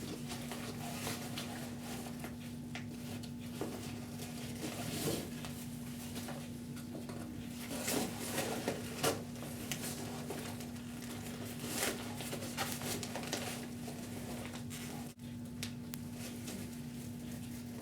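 Intermittent rustling and scraping as an orange rope is pulled through the slits of a nylon avalanche airbag and its pack webbing, with a cluster of louder handling noises about eight seconds in, over a steady low hum.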